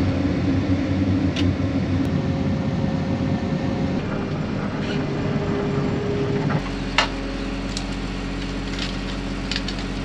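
Engine running with an uneven rumble. About two-thirds of the way in it gives way abruptly to a steadier, even mechanical hum with a deep low tone and a few light clicks.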